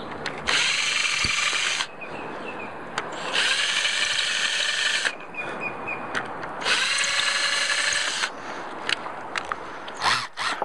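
Cordless drill running in three separate bursts of about a second and a half each, drilling holes through a mounting puck into a boat's deck.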